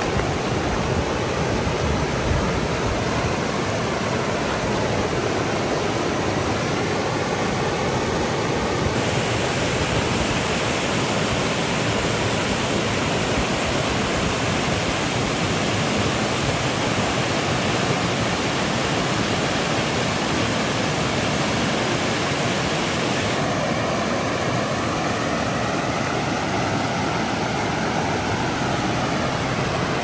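Stream water rushing steadily, a dense even splashing. The texture changes abruptly about nine seconds in, turning brighter and hissier, and changes back a few seconds before the end.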